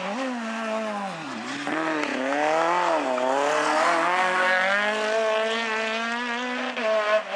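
Renault Clio kit-car rally car's engine revving hard. Its pitch dips sharply twice in the first three seconds, then climbs steadily as the car pulls away.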